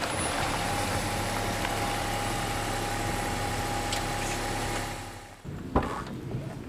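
Nissan Serena e-Power minivan running steadily, a low hum with a steady whine over it, which fades out about five seconds in. A single sharp click follows.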